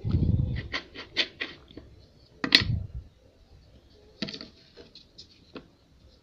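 Metal cookie cutter and hands working a slice of bread on a wooden cutting board: a dull thump, then a run of light clicks and scratches, with one sharper click about two and a half seconds in and more clicks and scratching about four seconds in.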